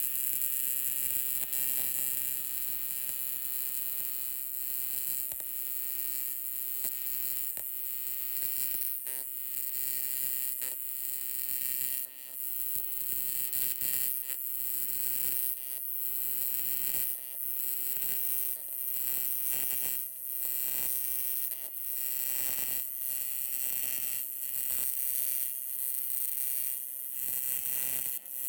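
AC TIG welding arc on aluminum, a steady electric buzz with a hiss, running continuously with brief dips every few seconds.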